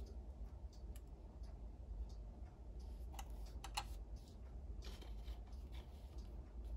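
Small plastic toy pieces clicking and tapping against a plastic playset as they are handled and set in place, with a few sharper clicks about three to four seconds in, over a faint low hum.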